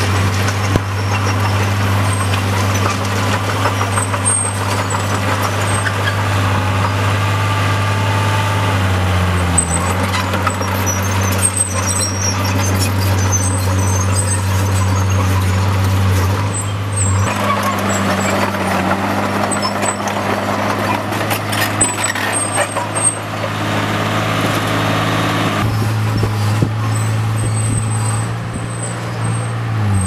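Caterpillar crawler bulldozer's diesel engine running under load while pushing earth and rock. The engine note shifts in pitch several times as the machine works.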